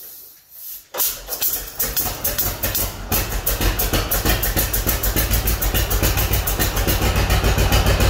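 Old two-cylinder John Deere tractor engine starting: it catches suddenly about a second in and settles into an even, quickening beat of firing pulses.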